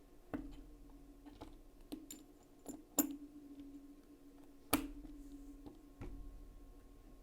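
Scattered small metallic clicks and taps as the Spyderco Delica's parts are handled while the stiff backspring is forced into place under new scales. There are about six separate clicks, the sharpest about three seconds in and another near five seconds, over a faint steady hum.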